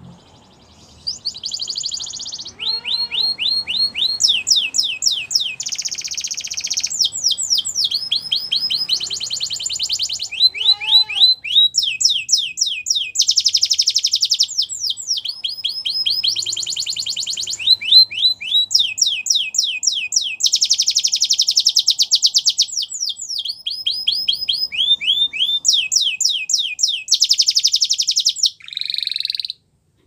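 Canary singing one long, unbroken song. Rapid trills of repeated down-sweeping notes alternate with buzzing rolls, starting about a second in and stopping just before the end.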